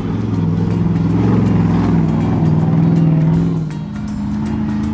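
An engine sound effect dubbed over the toy truck, running and revving with its pitch stepping up and down and easing off about three-quarters of the way through, over background music with a steady beat.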